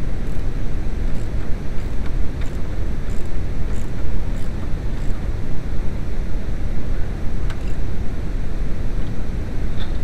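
Steady low rumble with a few faint, scattered clicks from hand tools, a socket wrench and locking pliers, working the steering-shaft nut.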